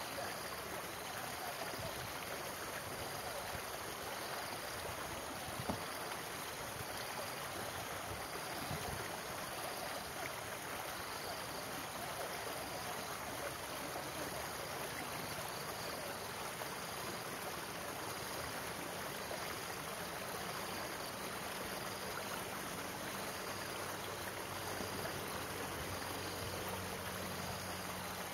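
Shallow stream rushing out of a culvert and over rocks: a steady, even rush of water.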